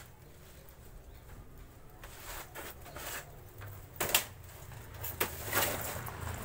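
Dry wood veneer scrap sheets rustling and scraping as they are handled on a manual lever veneer cutter, with a loud sharp crack about four seconds in and a few more cracks soon after as the sheets are slapped down and cut.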